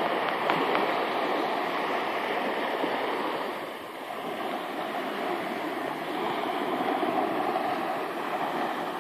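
Small sea waves breaking and washing up on a sandy beach: a steady hiss of surf that dips briefly about four seconds in and then builds again.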